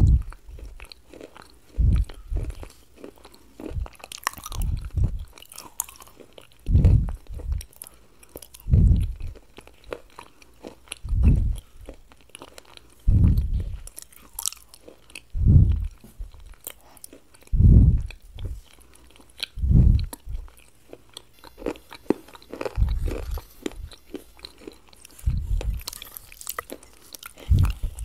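Close-miked chewing of crunchy papdi chaat: deep chewing sounds about every two seconds, with crisp crunching clicks in between.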